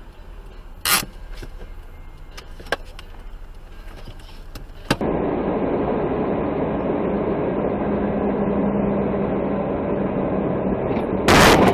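Vehicle cabin and road noise heard from inside a moving vehicle: faint at first, with a few sharp clicks and a louder knock about a second in. About five seconds in it switches to a louder, steady engine and road rumble with a low hum, and a loud sudden noise breaks in just before the end.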